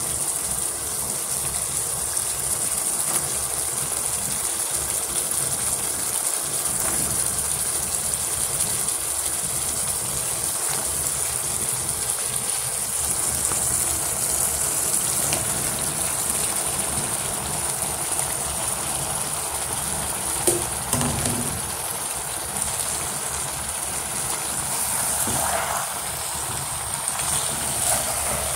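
Chicken and tomato masala sizzling steadily in oil in a frying pan, with a single sharp knock about twenty seconds in.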